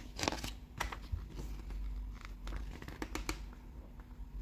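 Pages of a glossy paper catalogue being turned and handled, with crisp rustles near the start and again about three seconds in.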